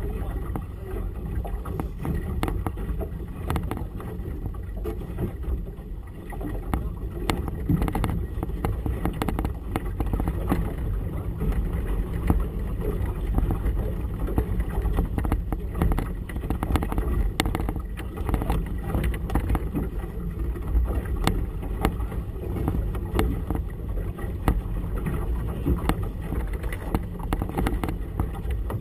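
Steady low rumble of wind and water around a small boat on choppy water, with frequent small knocks and slaps throughout.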